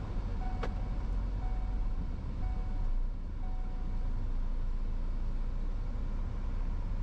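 Car driving slowly, heard from inside the cabin: a steady low engine and road rumble, with one short click about half a second in.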